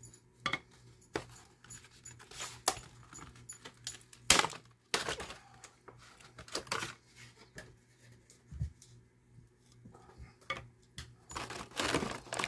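Clear plastic blister packaging and small plastic action-figure pieces being handled: irregular clicks, taps and rattles, with short bursts of rustling plastic, the loudest about four seconds in.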